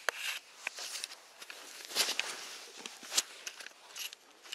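Handling noise as the camera is picked up and swung around: rustling of rain-suit fabric with scattered knocks and clicks. The sharpest knocks come about two seconds in and again about three seconds in.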